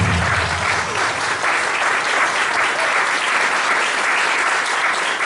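Audience applauding at the end of a stage performance, with the last notes of the music dying away in the first second.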